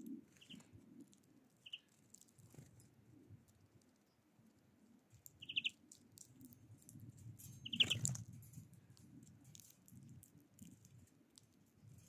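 Four short chirps from small songbirds among light clicks and taps of birds pecking and cracking sunflower seeds on a wooden feeder tray. A louder flutter with a chirp comes about eight seconds in, as a second bird lands.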